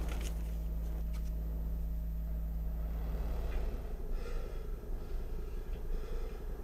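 A steady low hum, with a man breathing over it and an audible breath out about four seconds in.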